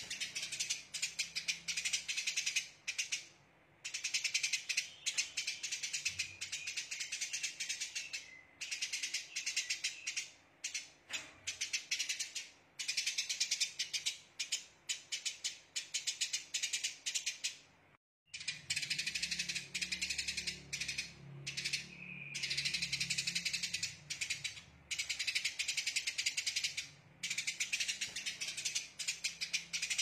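Eurasian tree sparrow giving dense, rapid chattering bursts, the harsh 'tembakan' calls, in runs of a second or two separated by short pauses.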